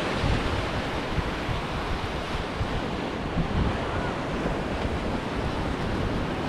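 Ocean surf breaking and washing up a sandy beach, a steady rush of waves with wind buffeting the microphone as a low rumble.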